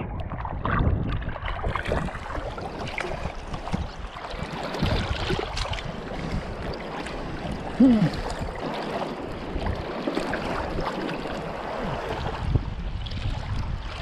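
Water splashing and sloshing around a kiteboard in shallow water, with wind buffeting the microphone. A short sound falling in pitch stands out about eight seconds in.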